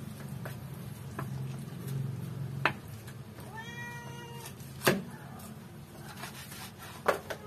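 Meat cleaver chopping through a whole raw chicken onto a wooden cutting board: sharp chops about two and a half seconds in, a louder one about five seconds in, and two quick ones near the end. A cat meows once for about a second between the first two chops, and a low hum runs underneath.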